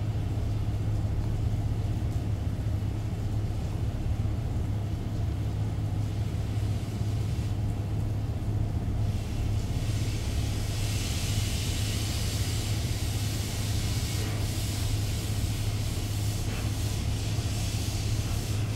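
A steady low mechanical hum, and from about halfway on a dog gnawing and licking at a chew treat held in a hand, a soft irregular wet chewing.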